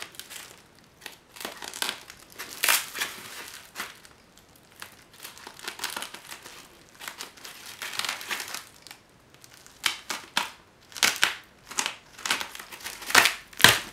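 Styrofoam packing sheets scraping and squeaking as they are cut and pried apart with a blade, in irregular scratchy bursts. The loudest bursts come near the end.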